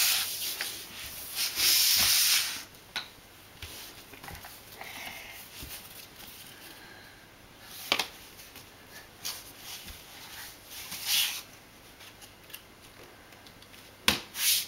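Cardboard jigsaw pieces and small hands rubbing and sliding over a wooden floor: a loud rustle at first, then quieter scrapes with a few sharp taps.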